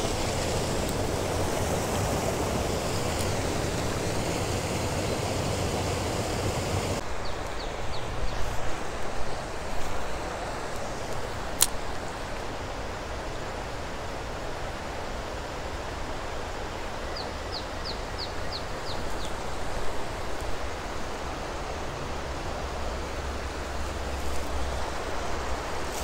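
Creek water pouring over a low concrete weir, a steady rushing noise; about seven seconds in it gives way abruptly to the softer sound of flowing creek water. A single sharp click sounds near the middle.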